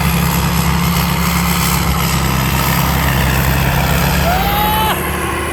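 Combine harvester's Isuzu 6HK six-cylinder diesel engine running steadily with a constant low drone.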